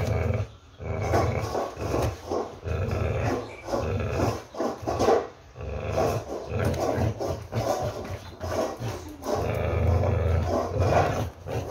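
Pit bull growling in repeated rough bursts with short breaks between them while it grips and tugs a toy hanging from a spring pole, a play-tug growl during a jaw-strength workout.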